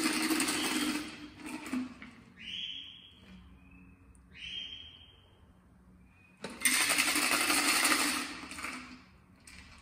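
Espresso martini strained from a stainless steel cocktail shaker into a martini glass: liquid pouring in two spells, the second starting about six and a half seconds in. Between them, two short ringing clinks of ice and metal in the shaker.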